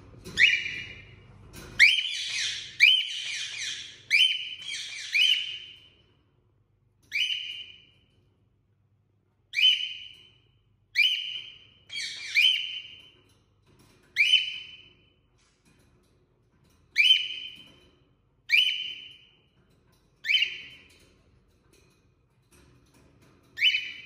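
Male cockatiel calling: about fifteen short, loud calls, a quick run of them in the first few seconds, then one every second or two with pauses between.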